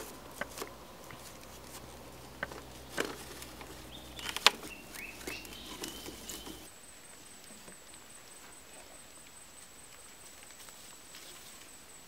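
Split green bamboo strips clicking and knocking against each other and the pole frame as they are handled and laid into a platform floor, with one sharp knock about four and a half seconds in. At about seven seconds the sound drops to a quiet, even background with a thin steady high tone.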